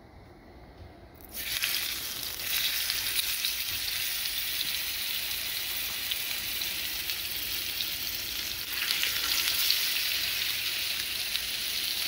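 Marinated tuna steaks sizzling in hot olive oil in a frying pan on high heat. The sizzle starts suddenly about a second in, as the steaks go into the oil, and gets louder twice more.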